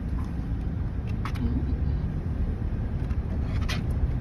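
Car running and rolling along, a steady low engine and road rumble heard from inside the cabin, with two short clicks.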